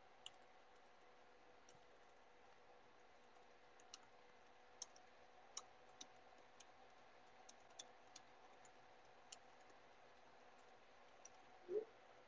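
Near silence on a call line, with faint clicks at irregular intervals and one brief low sound near the end.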